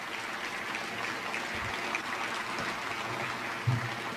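Audience applauding in a large hall: a steady patter of many hands clapping, with a brief low bump near the end.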